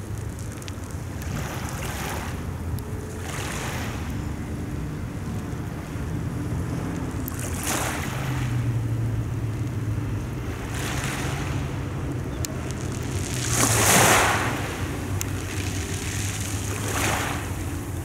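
Small Mediterranean waves washing onto a pebble shore, one wash every few seconds, the loudest about fourteen seconds in, over a steady low rumble.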